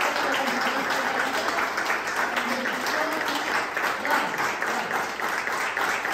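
A small group of people applauding, a steady stream of hand claps.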